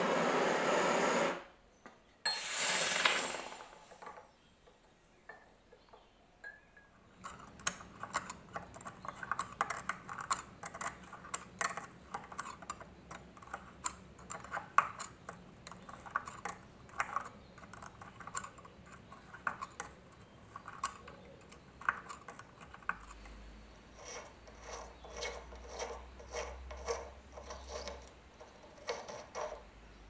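A metal pick scraping and clicking against the inside of a rusty old lighter body: a long run of small clicks and scrapes. Before it, about two to three seconds in, comes a brief loud rushing noise.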